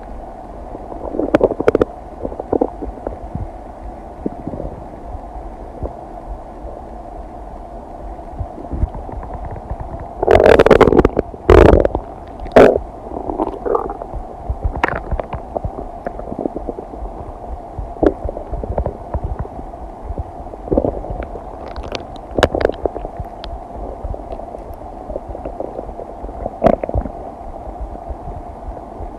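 Human stomach digesting a meal: scattered short gurgles and rumbles over a steady low hum, with the loudest run of gurgling about ten to thirteen seconds in.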